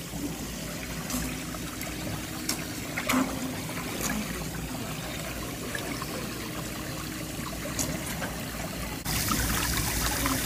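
Water running from a pedicure spa's sprayer hose into the foot tub: a steady, even hiss that starts abruptly about nine seconds in, louder than what comes before. Before it there is only steady low background noise with a few small clicks.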